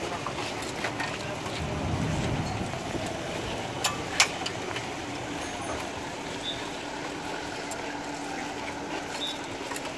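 Street ambience as a low-floor articulated tram rolls in along the street rails, with a steady low hum in the second half as it draws near. Two sharp clicks stand out about four seconds in.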